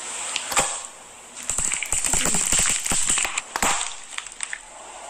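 Food frying in hot oil, crackling with many sharp, irregular pops over a steady hiss.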